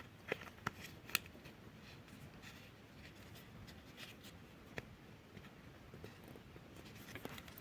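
Faint handling of small plastic toy pieces: scattered light clicks and rubbing as a mermaid figurine and its display stand are fitted together.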